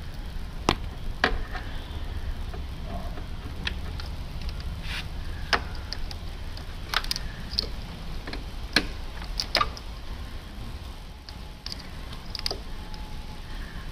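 Small metal clicks and taps, irregular and about a dozen in all, from a brake banjo bolt, its washers and a motorcycle front brake master cylinder being handled and fitted together by hand. A steady low hum runs underneath.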